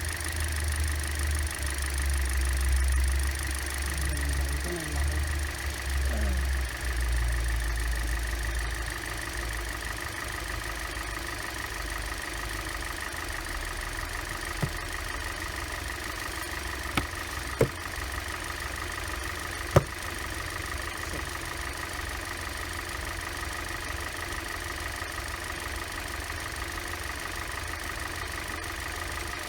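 Hyundai Elantra's gasoline four-cylinder engine idling on freshly fitted spark plugs and ignition coils. It is heavier in the low end for the first several seconds and then settles to an even idle. A few sharp clicks come near the middle.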